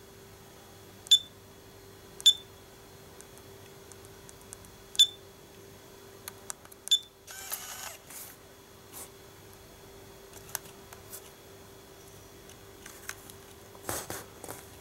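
Nikon Coolpix S7000 compact camera beeping four times as its buttons are pressed, each a short high beep. About seven and a half seconds in comes a brief whir of the lens motor, then a few clicks near the end as the camera starts working without its lens error.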